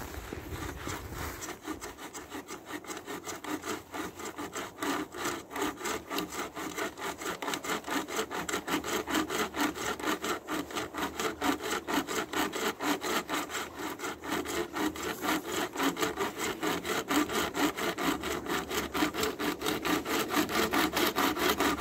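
Pocket chainsaw, a flexible toothed chain pulled by two paracord handles, sawing back and forth across a log in a fast, even rhythm of cutting strokes that grow a little louder. The chain has so far cut only a shallow groove.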